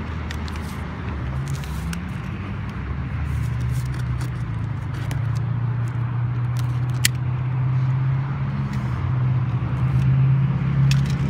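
Safety box cutter slicing packing tape on a cardboard box, with scattered clicks and scrapes of the cardboard being handled. Under it runs a steady low motor hum that grows louder a few seconds in.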